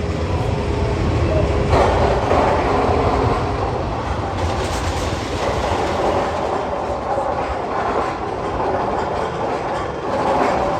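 A roller coaster train running along its steel track, with a steady rumble and clatter that gets louder about two seconds in.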